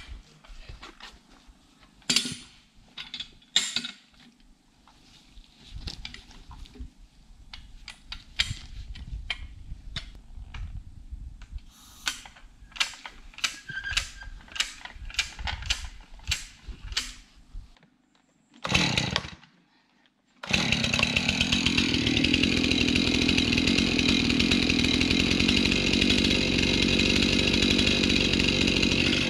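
A run of sharp knocks and clacks for the first two-thirds, then a chainsaw starts up and runs steadily and loudly.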